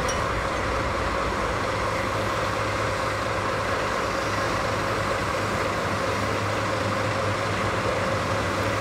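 Diesel locomotive engine running steadily while hauling a railcar at walking pace: a low engine hum under a steady higher-pitched whine.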